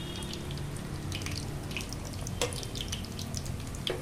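Hot oil sizzling and crackling around egg-coated cutlets shallow-frying in a pan, midway through frying as they are turned to brown. Two sharper clicks come about two and a half seconds in and near the end, as a metal spatula works against the pan.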